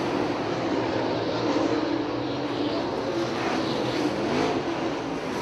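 Super late model dirt track race cars' V8 engines running hard in a pack, a steady drone whose pitch rises and falls as the cars race past.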